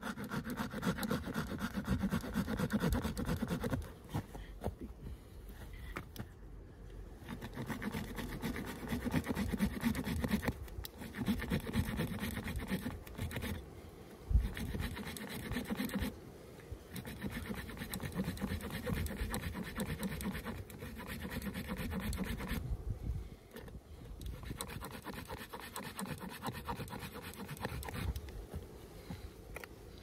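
Leatherman Surge multitool's coarse-toothed replaceable saw blade cutting through a thick, wet stick by hand, rapid back-and-forth scraping strokes in spells of several seconds broken by short pauses.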